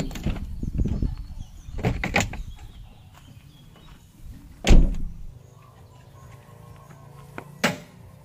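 Knocks and thuds of a camper van's doors and fittings being handled. There is clatter in the first couple of seconds, a heavy door thud about halfway through (the loudest sound), and a sharper knock near the end.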